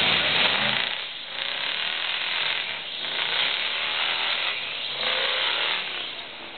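Harsh, surging noise of a lifted off-road pickup's tyres spinning on a rocky mud climb, flinging mud and stones, with its engine revving faintly underneath. The noise swells and eases several times.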